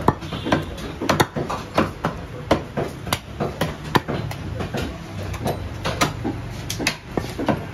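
A heavy curved cleaver chopping beef on a wooden chopping block: a run of sharp, irregular chops at roughly one to two a second, over a low steady background hum.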